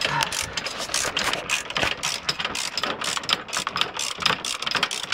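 Ratchet wrench clicking in quick, uneven runs as a bolt is unscrewed.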